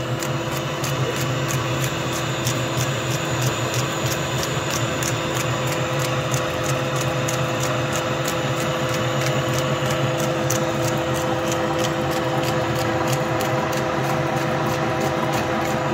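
Okuma lathe running steadily with a large steel shaft turning in its chuck: an even machine hum with several steady tones and a fast, regular ticking over it.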